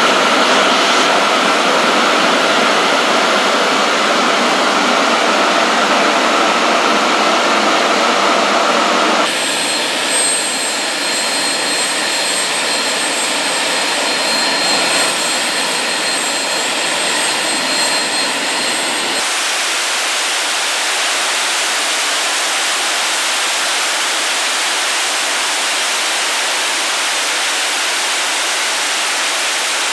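Orenda OTF-3 industrial gas turbine, an aeroderivative of the Orenda Type 14 turbojet burning gaseous propane, running steadily at speed, the display reading about 7,000 rpm. The tone changes abruptly twice, about 9 and 19 seconds in, ending as an even rushing noise.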